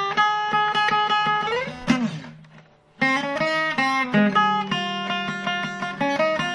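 Instrumental cartoon-theme ringtone melodies played on a plucked, guitar-like instrument. One tune ends about two seconds in with a quick strum and fades out, and a new tune starts a second later.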